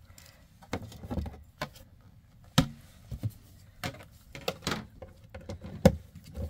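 Irregular clicks and knocks of a screwdriver and hands working at the front of an RV's breaker and fuse panel. The two strongest knocks come about two and a half seconds in and near the end.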